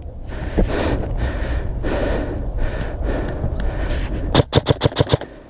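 Heavy breathing with low rumble from wind and movement on the microphone, then, about four and a half seconds in, a rapid string of about seven airsoft gun shots in under a second.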